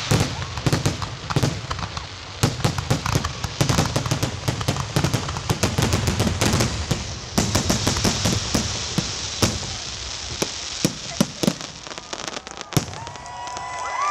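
Aerial fireworks bursting in a rapid, dense barrage, several bangs a second, with a crackling spell midway.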